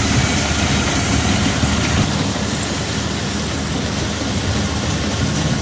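Tractor engine and a tractor-drawn straw reaper running, a steady mechanical drone mixed with noise as the machine chops wheat stubble into straw. It gets a little quieter about two seconds in.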